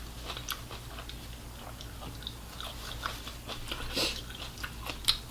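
A person chewing food close to the microphone: wet mouth clicks and smacks, with sharper clicks about four seconds in and near the end, over a steady low hum.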